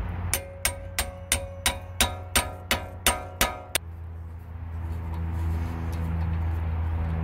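A hammer strikes a hand impact driver set in the rusted Phillips-head retaining screw of a Honda Civic's brake rotor, whose head is partly stripped. There are eleven sharp, ringing metal blows, about three a second. They stop just before halfway through, and a steady low hum carries on.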